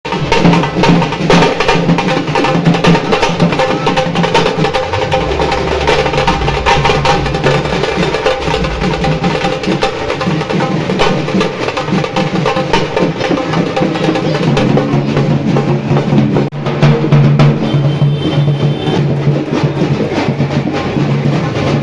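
Music with heavy drumming and percussion, starting abruptly.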